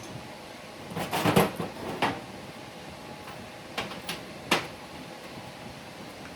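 Metal parts being handled and set in place: a clatter about a second in, then a few separate sharp knocks.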